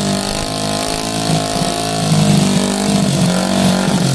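Honda XRM 110's single-cylinder four-stroke engine running after a rebuild with a new cylinder block and piston set, blipped so its pitch rises and falls a few times.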